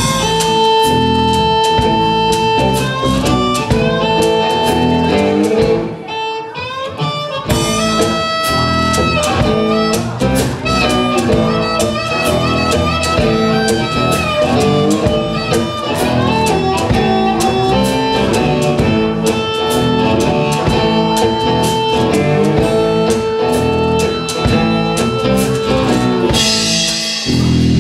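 Live blues band in an instrumental break. An amplified harmonica, played into a vocal mic, takes long held notes over cigar-box guitars and a drum kit. The band drops back briefly about six seconds in, then comes straight back in.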